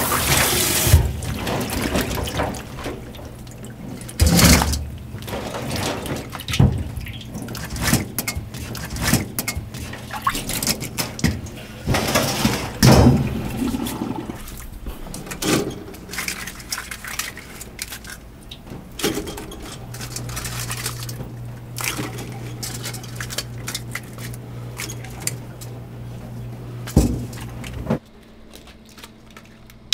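Water splashing and sloshing with irregular clattering knocks, in uneven bursts, and a steady low hum for a while near the end.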